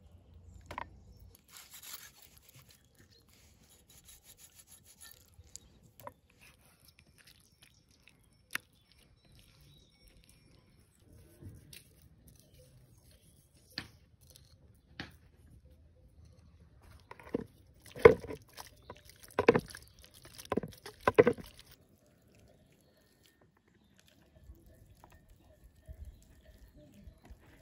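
Hands handling raw chicken pieces in a metal colander, with scattered small clicks and taps of a plate and utensils against the metal. A quick series of about five louder knocks comes between roughly 17 and 21 seconds in.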